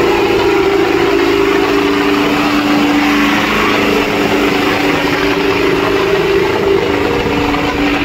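Tractor diesel engine running steadily and loudly.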